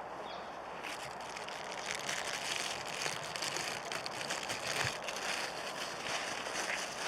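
Plastic dog-waste bag crinkling and rustling in the hand while dog droppings are picked up. It starts about a second in and goes on as a dense, crackly rustle.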